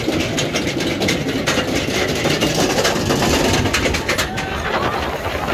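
X2 roller coaster train climbing the lift hill, its chain and track clicking and clanking rapidly. The clicking thins out about four seconds in as the train nears the crest.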